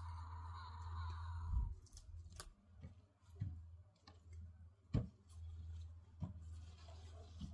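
A handful of sharp snaps and soft knocks as leafy greens are picked and broken off by hand, over a steady low rumble. Background music stops about two seconds in.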